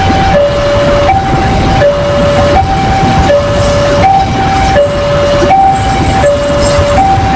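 Railway level-crossing warning alarm sounding a two-tone high-low signal that alternates about every 0.7 seconds, over a steady low rumble.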